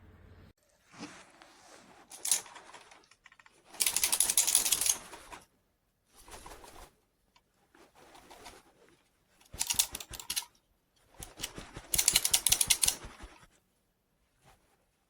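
Plastic buttons clicked in quick runs: three loud flurries of rapid clicks, each about a second long, with lighter scattered clicking between them.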